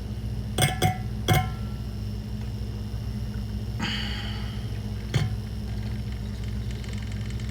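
Clinks and taps of a cup and utensils as coffee is mixed: three ringing clinks about a second in, a short hiss around four seconds, and one more tap a little after five seconds, over a steady low hum.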